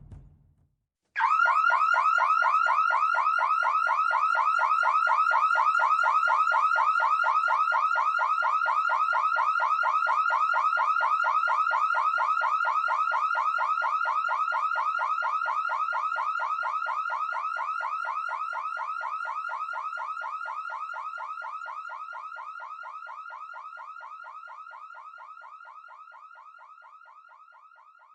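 Electronic security alarm siren (car or house alarm type) sounding a continuous, rapidly pulsing tone. It cuts in abruptly about a second in and fades out slowly over the second half.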